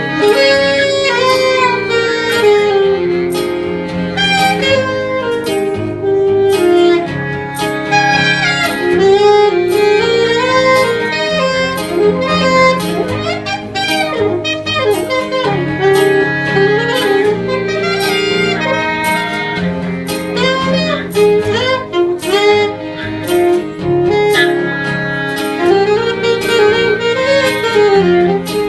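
Live band playing an instrumental passage, a lead melody line over sustained chords and a steady beat.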